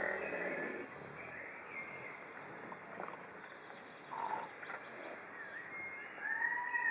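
Pot-bellied pigs snoring in their sleep.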